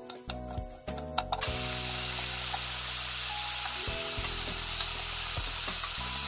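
Julienned burdock root sizzling as it stir-fries in oil in a pan, tossed with wooden chopsticks. The sizzle starts about a second and a half in and then runs steady.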